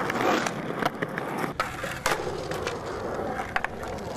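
Skateboard wheels rolling on concrete with a steady rumble, broken by a few sharp clacks, the loudest about two seconds in.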